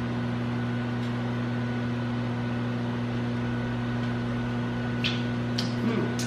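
Microwave oven running with a steady electrical hum, and a few light clinks near the end.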